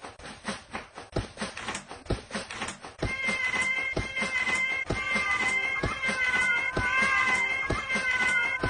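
Cat meowing, then from about three seconds in a long, wavering caterwaul, over a regular ticking beat.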